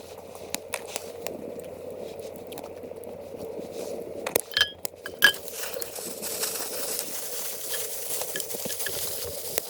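Campfire crackling and popping while metal camp cookware is handled: two sharp metal clinks with a short ring about halfway through, then a steady hiss like sizzling or steam builds up.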